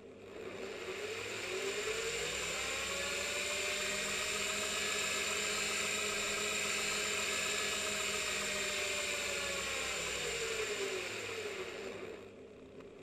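A motor whirring, played in reverse: it rises in pitch to speed, runs steadily, then winds down near the end.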